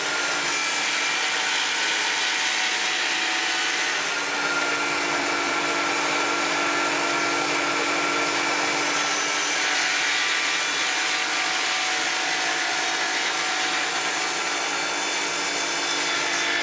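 Festool Precisio CS 50 table saw running and ripping a wooden baseboard lengthwise: a steady whine of the blade cutting through the wood.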